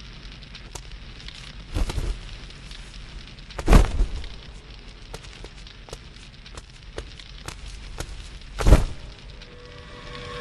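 Fire crackling, with frequent sharp pops over a low steady rush. Three heavier thumps stand out about two, four and nine seconds in.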